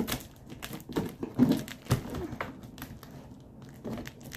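A blade cutting and scraping through packing tape on a cardboard box, with crinkling tape and irregular sharp clicks and scrapes against the cardboard.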